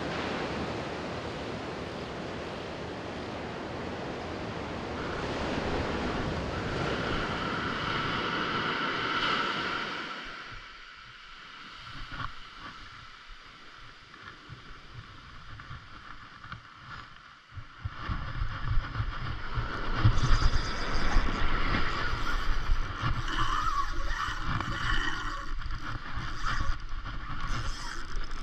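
Surf washing on the beach with wind buffeting the microphone, the low rumble growing louder about two-thirds of the way through. It starts with a steady hiss that drops away about ten seconds in.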